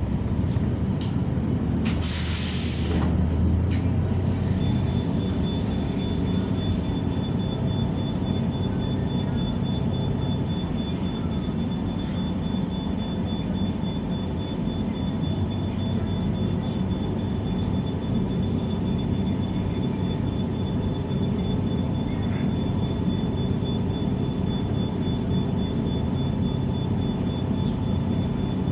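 Steady engine and road rumble of a New Flyer XN40 natural-gas city bus under way, heard from inside the cabin. A brief loud hiss comes about two seconds in and a fainter hiss follows for a few seconds. A thin high whine runs from about five seconds on.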